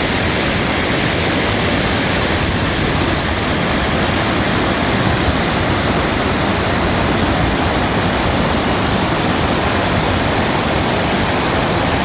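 River water pouring over a low concrete dam and churning through whitewater below: a loud, steady rush of water.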